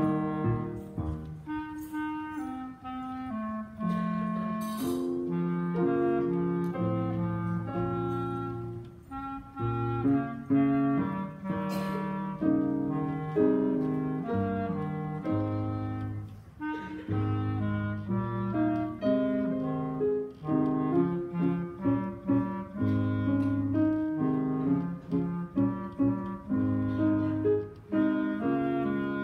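A clarinet plays a melody of held and moving notes, with a lower accompaniment sounding beneath it.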